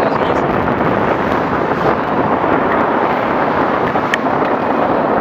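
Steady rush of wind over the microphone of a moving bicycle-mounted camera, mixed with the running of car traffic on the road alongside. A faint tick about four seconds in.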